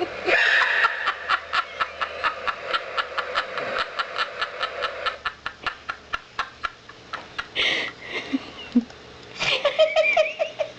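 A woman laughing in a long run of short breathy pulses, about four or five a second, that fade over several seconds, then breaking out into louder voiced laughter again near the end.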